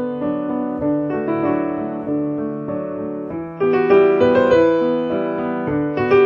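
Background piano music playing soft held notes and chords, getting louder a little past halfway.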